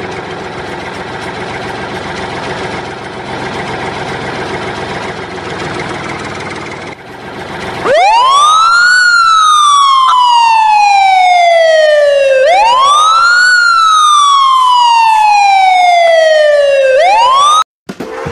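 A steady, noisy engine-like rumble, then a loud wailing siren. Each wail rises quickly and falls slowly over about four seconds. Two full wails play, and a third cuts off suddenly near the end.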